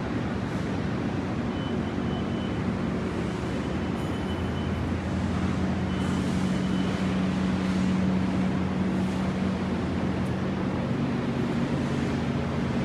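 A motor running steadily, a constant low hum over a noisy rush that swells slightly midway.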